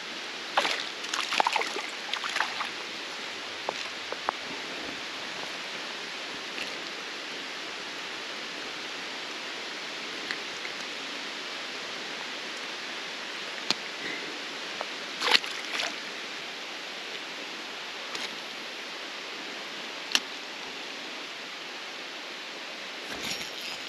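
Steady hiss of rain falling on a creek, mixed with the water's flow, with a few sharp ticks and taps scattered through, the loudest about fifteen seconds in.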